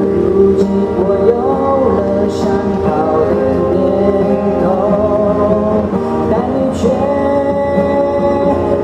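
Mandarin pop ballad's introduction: a wavering melody line over sustained band chords, with light cymbal strokes.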